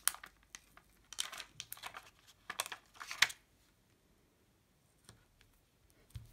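Crinkling and rustling of craft rhinestones and their backing sheet being handled by fingers, in two short bursts in the first half with a few light clicks, then quiet handling.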